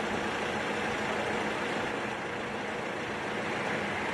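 A vehicle engine idling, a steady low hum over a constant street background.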